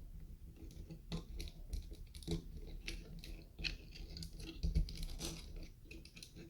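Hard plastic LEGO Technic pieces clicking and rattling as they are handled and fitted together, a rapid scatter of small clicks, loudest a little before five seconds in.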